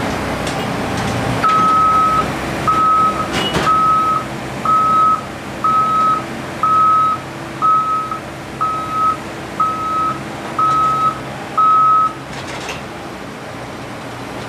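Warning beeper of an aircraft scissor-lift cargo loader sounding eleven even beeps, about one a second, signalling that the loader is moving as its deck lifts a cargo pallet toward the plane's door. A steady low engine hum runs underneath.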